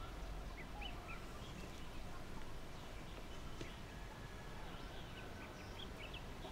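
Faint background ambience with small birds chirping now and then, short high chirps scattered over a low steady hum.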